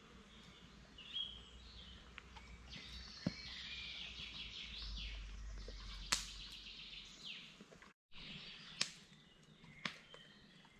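Woodland ambience: small birds chirping, broken by a few sharp clicks.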